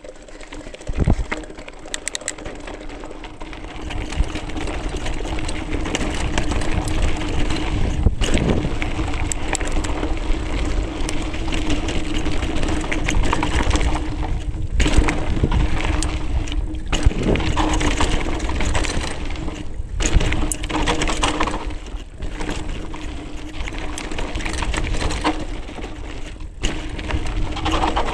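Mountain bike riding fast down a rocky dirt trail: tyres crunching over gravel and stones, with frequent knocks and rattles from the bike over bumps, wind rumbling on the microphone, and a steady buzz under it all. It gets louder about four seconds in.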